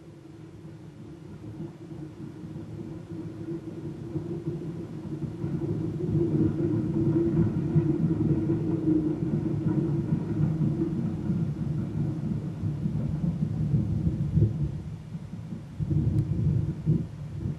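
A 1925 Baldwin 2-8-0 steam locomotive and its train approaching with a steady rumble, growing louder over the first six seconds and holding, with a brief dip near the end.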